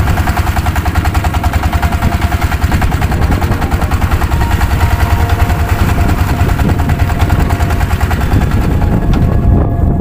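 A fishing boat's engine running under way: a loud, steady drone made of rapid, even pulses.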